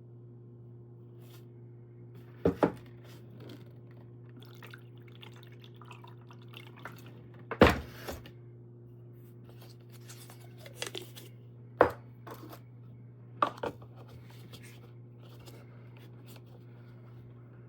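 A few sharp knocks and clicks of hard objects being handled, some in quick pairs, the loudest about halfway through, over a steady low electrical hum.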